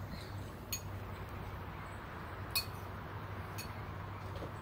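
Three light clinks of small hard objects being handled, the second, about two and a half seconds in, the loudest, over a steady low hum.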